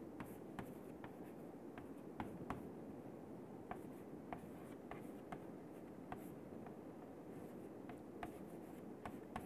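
Chalk writing on a chalkboard: faint, irregular taps and short scratches as the chalk strikes and drags across the board.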